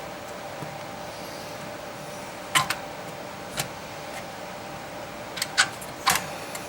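A few sharp clicks and taps of small parts and tools being handled during hands-on work, in pairs and singly, over a steady faint hum.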